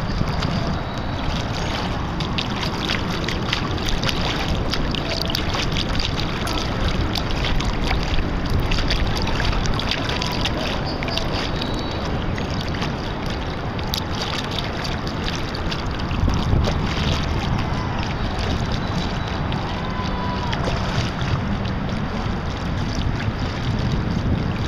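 Wind buffeting the microphone: a steady low rumble with crackle over it.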